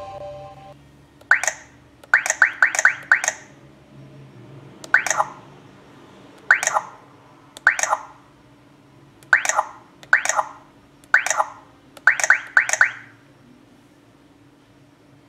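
Touchscreen key-press beeps from a car GPS navigator's speaker, one short falling chirp per tap: about fifteen in all, some single and some in quick runs of three to five as menu icons are tapped.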